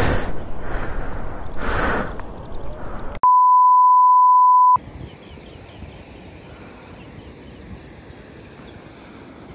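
A steady electronic beep at a single pitch, about a second and a half long, standing alone in dead silence near the middle. Before it there is a rushing outdoor noise that swells twice; after it the sound cuts to a quiet, even background.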